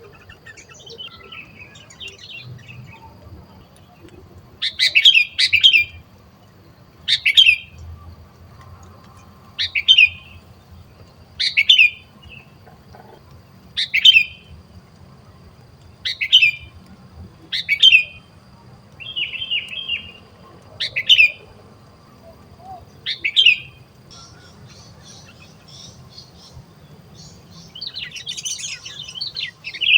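Sooty-headed bulbul calls: a short, sharp call repeated about every two seconds, around ten times, then a busier chattering run of calls near the end.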